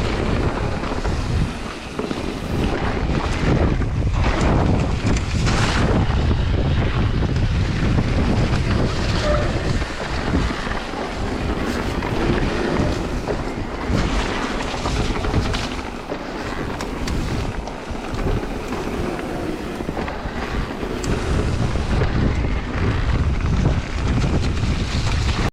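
Wind buffeting the microphone of a camera riding on a moving mountain bike, over a steady rumble of tyres on the trail, with frequent short knocks and rattles from the bumps.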